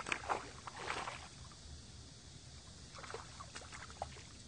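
A hooked largemouth bass splashing at the water's surface as it is played to the bank, loudest in the first second, with a few smaller splashes about three seconds in.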